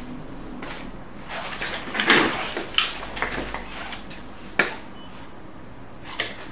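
Handling noise at a workbench: irregular clicks, knocks and short rustles of parts and tools being moved, the loudest about two seconds in, with a sharp click at about four and a half seconds.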